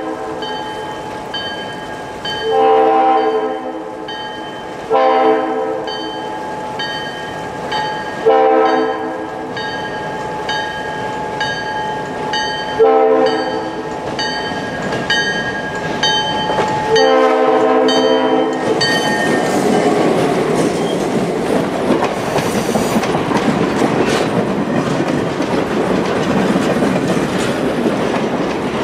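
Diesel locomotive air horn sounding several multi-note blasts for a grade crossing, the last one long, over a railroad crossing bell ringing about twice a second. About two-thirds of the way in, the locomotive and passenger coaches pass close by, their wheels rumbling and clicking over the rails and drowning out the bell.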